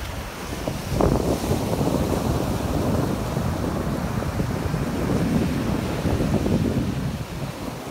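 Wind rumbling on the microphone over the wash of breaking surf, gusting unevenly, with a brighter wave wash about a second in.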